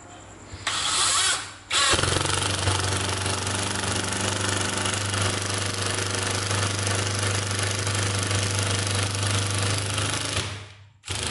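National cordless impact driver driving a screw into wood. A short burst about half a second in is followed by the impact mechanism hammering continuously for about eight seconds, stopping shortly before the end. The owner judges its hammer to hit less hard than that of the other driver he tested.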